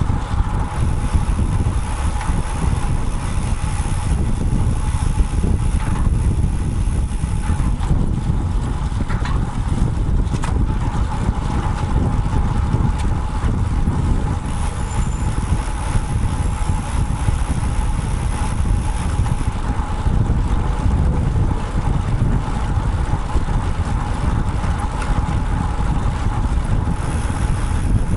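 Wind buffeting the microphone of a bike-mounted action camera as a road bike rides along, a steady low rumble mixed with road and traffic noise.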